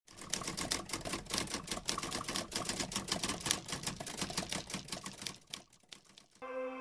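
Rapid mechanical clicking clatter, many clicks a second, that thins to a few scattered clicks about five and a half seconds in; near the end a soft ambient music chord comes in.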